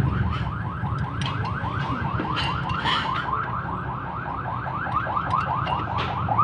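Car alarm sounding: a fast warbling run of short rising chirps, about seven a second, over a low steady hum.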